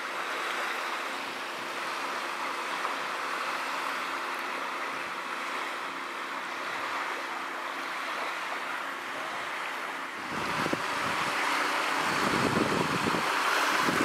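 Small waves washing in on a shallow shore, a steady hiss of surf. About ten seconds in, wind buffeting the microphone gets louder.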